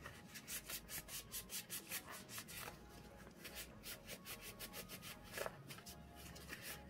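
Cloth rubbing quickly back and forth over an airsoft pistol's slide, wiping off dirty old grease: a faint run of short scrubbing strokes, several a second.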